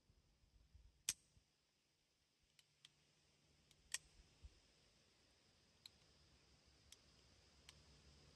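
Sharp metallic clicks from the action of a Remington 1858 New Model Army cap-and-ball revolver, with a loud one about a second in and another about four seconds in, then fainter clicks. The hammer snaps without firing because the percussion caps were not seated fully on the nipples.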